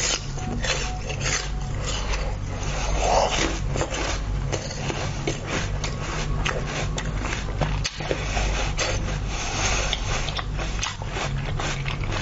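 Close-miked mouth sounds of eating a frozen fruit: a dense run of small crackles and clicks as it is licked, sucked and bitten, over a steady low hum.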